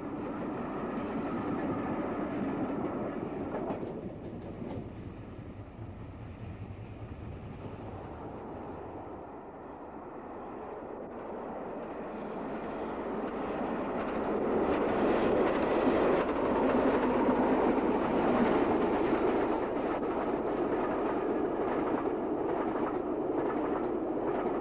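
Steam-hauled passenger train passing, its coaches rolling with wheel clatter over the rail joints. It grows louder a little past halfway as the train comes close.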